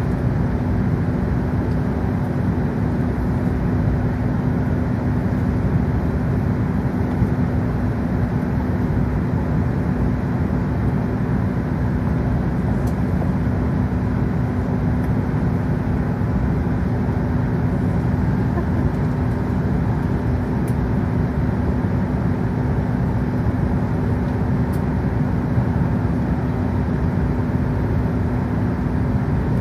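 Cabin noise of an Airbus A380 taxiing: its Rolls-Royce Trent 900 engines running at taxi power together with the cabin air, a steady rumble with a constant low hum.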